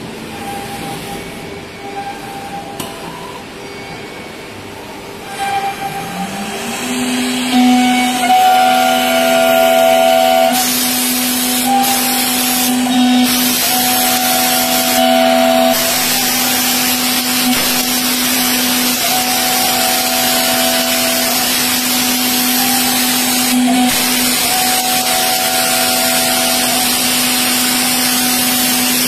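SUDIAO D1-E door CNC machine's router spindle spinning up with a rising whine about six seconds in, then holding a steady high whine as it mills a lock or hinge slot in the edge of a wooden door panel, with a loud hiss of cutting. For the first few seconds the machine runs more quietly, with faint ticks.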